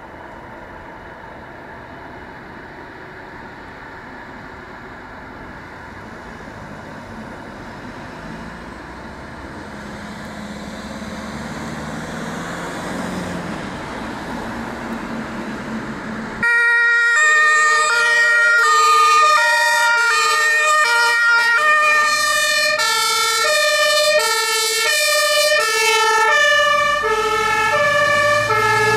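German fire engine approaching, its vehicle noise slowly growing louder. About halfway through, its two-tone siren (Martinshorn) switches on suddenly and loudly, stepping back and forth between two pitches as the truck comes close and passes.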